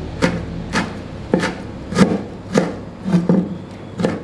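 Chef's knife chopping red curly chillies finely on a thick wooden chopping board: sharp knocks of the blade on the wood, about two a second.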